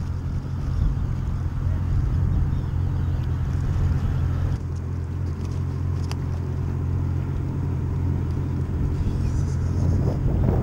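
Outboard motor of a Yamaha 190 FSH center-console boat idling with a steady low hum, dropping slightly in level about halfway through, with a single sharp click near the middle.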